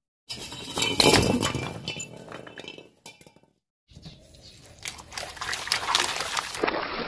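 A car tyre crushes a bundle of thin white tubes with crackling crunches, loudest about a second in. After a short break, the tyre rolls over plastic cups full of coloured drinks: the cups crackle as they burst, and the liquid splashes out across wet concrete.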